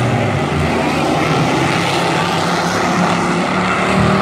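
Engines of a pack of dirt-track racing pickup trucks running hard together just after the green flag, a loud, steady, overlapping drone of several engines at once.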